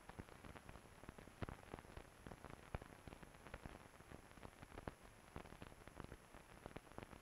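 Near silence: faint hiss scattered with irregular clicks and crackles, the surface noise of a mute film transfer, over a thin steady high whine.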